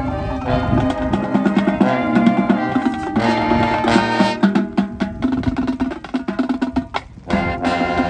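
High school marching band playing its field show: sustained brass chords over drums and other percussion hits. The sound briefly drops out about seven seconds in before the band comes back in.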